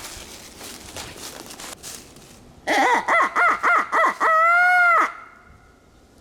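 Turkey locator call blown by a hunter to make a tom shock-gobble: a quick run of five short, loud calls, then one long held call that stops abruptly. Wind noise runs underneath.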